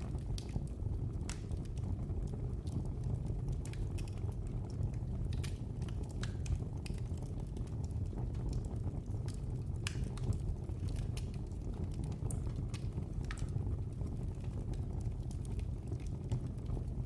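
Wood fire burning in a fireplace: a steady low rumble of flame with irregular sharp crackles and pops scattered throughout.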